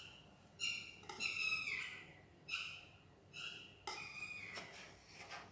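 Knife blade scraping across a steel thali, giving a series of short high-pitched squeals, about five in all, with a couple of sharp clinks of the blade against the plate after about four seconds.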